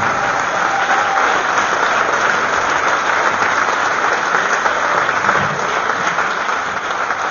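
Concert audience applauding, a dense, even clapping that holds steady and begins to ease off near the end.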